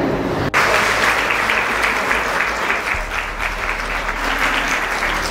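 Audience applauding: dense, steady clapping that starts abruptly about half a second in.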